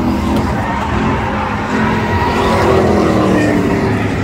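Engines of several race pickup trucks running hard around a paved oval. The sound is loud and continuous, and the engine notes slide down in pitch as the trucks pass by.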